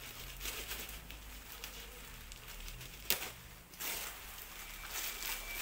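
Plastic packing wrap rustling and crinkling as it is cut and pulled away by hand with a small blade, with a sharp click about three seconds in.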